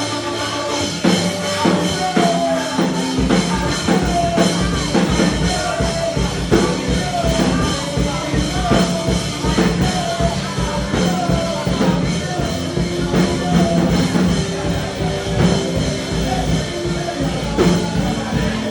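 Instrumental worship music with a drum kit beat and a short melodic phrase repeating about once a second over held chords.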